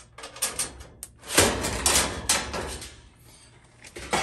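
Vented sheet-metal back panel of a Frigidaire electric range coming loose and being taken off: a few light clicks, then about a second in a loud stretch of rattling, scraping metal lasting over a second, and a sharp clank near the end.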